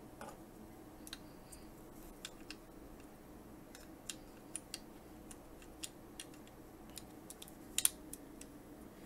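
Small, scattered clicks and taps of hard plastic action-figure parts being handled and fitted together, with a sharper double click near the end, over a faint steady hum.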